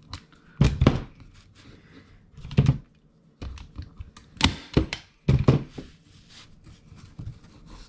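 Staple gun driving staples through burlap into a wooden board: several sharp, separate snaps a second or two apart.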